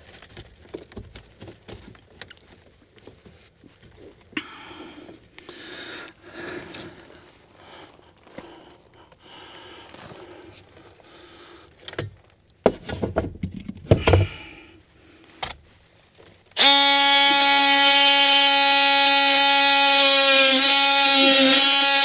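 Rustling and light knocks as a round metal exhaust duct is handled and fitted, with a few sharp metal clanks about two-thirds of the way through. About 16 seconds in, a cordless power drill starts and runs with a loud, steady whine, much louder than the handling.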